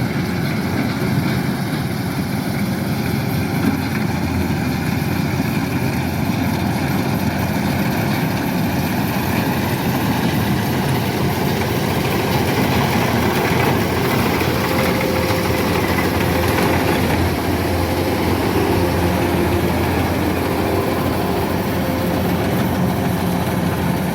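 Kubota DC-105X combine harvester's diesel engine and machinery running steadily.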